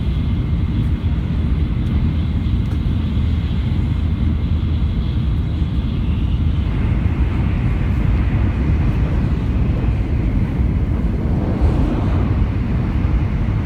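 Shinkansen bullet train running with a steady, loud low rumble.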